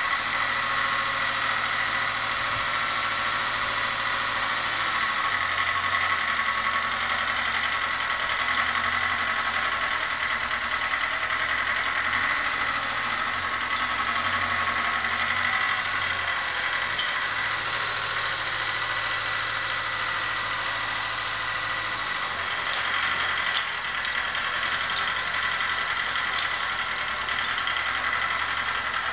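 Satoh Beaver S370 compact tractor running steadily while it works snow, with a steady high whine over the engine; the low engine note swells and eases every few seconds.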